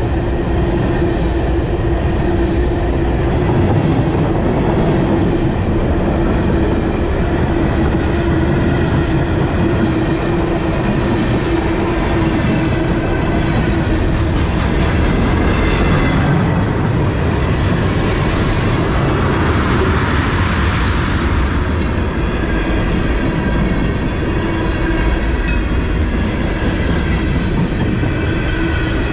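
Freight cars of a long mixed freight train rolling past close by: steady, loud rumble and clickety-clack of steel wheels over the rail, with a steady ringing tone and a swell of hiss in the middle.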